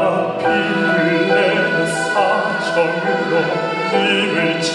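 A male classical-style vocalist sings long, held, wavering notes into a handheld microphone over an amplified instrumental backing track.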